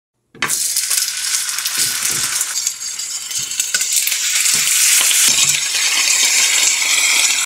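Pork chops sizzling loudly in hot fat in a frying pan. The sizzle starts suddenly just after the beginning, and a few soft knocks come through it as metal tongs turn the chops against the pan.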